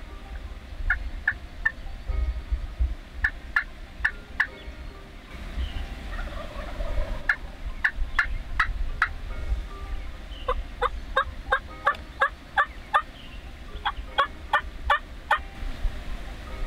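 Wild turkey yelping: five runs of short, evenly spaced notes, about three a second and three to nine notes per run, the longest run coming about two-thirds of the way in.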